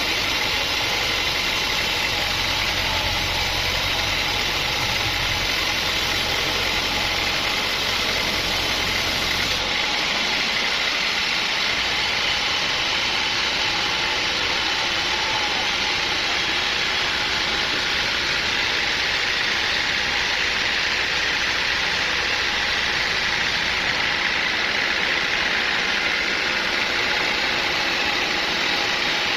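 Sawmill machinery running steadily, a loud even mechanical drone. About ten seconds in, the deep low rumble drops away while the higher noise carries on.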